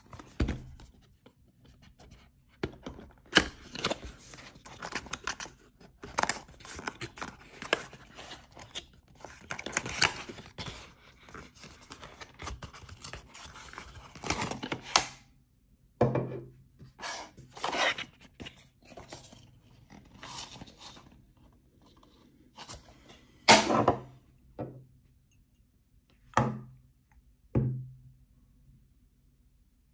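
Cardboard perfume box being handled and opened: scraping and rustling of the card as the flaps are worked and the contents slid out. In the second half this gives way to about seven separate knocks.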